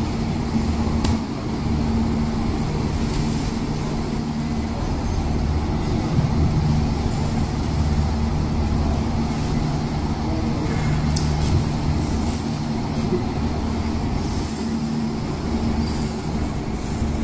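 A steady low machine drone: a hum on a few low pitches that swells and eases a little, with a few faint clicks over it.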